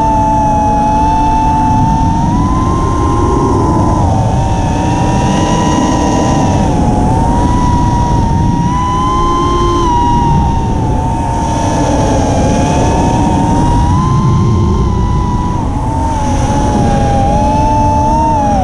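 Electric motors and propellers of an FPV chase quad whining at high throttle, heard from its onboard camera: one steady high whine that drifts slightly up and down in pitch as the throttle changes, over constant wind rush on the microphone.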